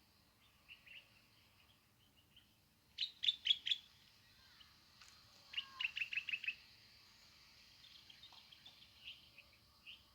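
Small birds chirping: a run of four loud, quick chirps about three seconds in, then a faster run of six or seven about halfway through, with fainter scattered chirps between.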